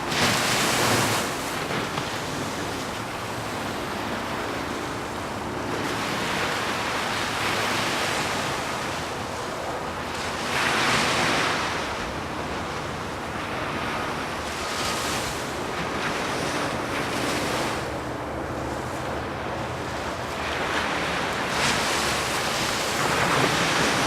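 Ocean surf: waves breaking and washing in, the rush of water swelling and fading every few seconds.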